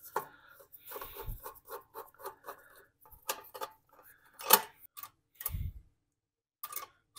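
Small metal clicks and ticks of needle-nose pliers working the spring and throttle linkage on a Tecumseh engine's carburetor, with a sharper click about four and a half seconds in and a dull knock about a second later.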